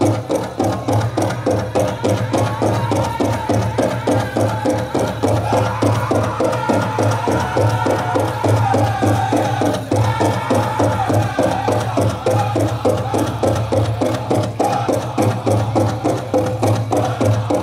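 Powwow drum group singing a chicken dance song, with a fast, even beat struck on a big drum, heard over the arena's PA.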